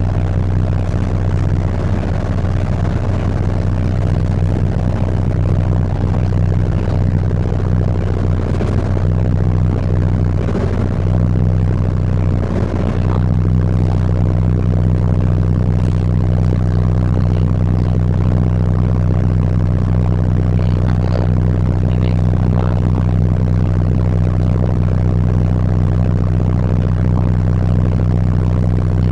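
City bus engine running under way, heard from inside the cabin as a steady low drone with road noise. The engine note shifts slightly about halfway through.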